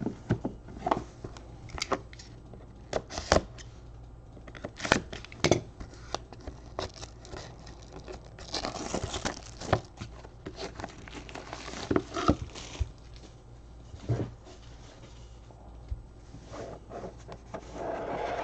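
Plastic shrink wrap crinkling and tearing as it is stripped off a cardboard trading-card hobby box, amid scattered taps and clicks of the boxes being handled. The longest crinkling comes about halfway through.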